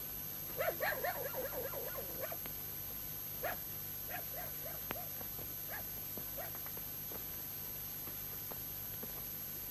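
A dog whimpering: a quick run of short, high yelps about half a second in, then single whimpers every second or so, fading out.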